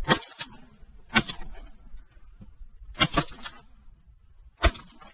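Shotguns fired by two hunters at a passing flock of ducks: about five sharp shots at uneven intervals, two of them close together a little after three seconds in.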